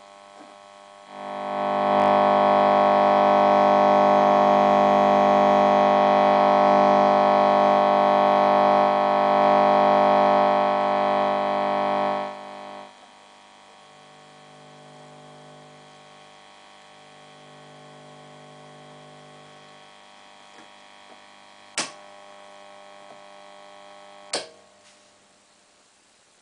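Orange Rockerverb valve guitar amplifier humming: the unwanted hum noise that is its fault. The hum swells to a loud, buzzy level about a second in, holds for some eleven seconds, then drops back to a quieter hum. Near the end there are two sharp clicks, and after the second the hum falls lower still.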